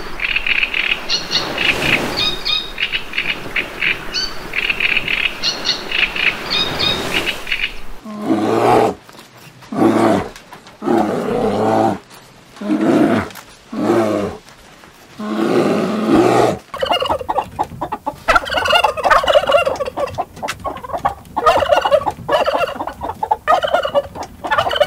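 Gulls calling over the wash of surf. Then a run of about seven short, low animal calls, each under a second, with gaps between. Then a domestic turkey tom gobbling repeatedly.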